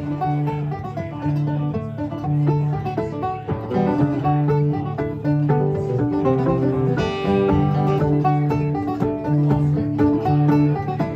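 Bluegrass string-band music, with banjo and guitar playing a steady, rhythmic tune.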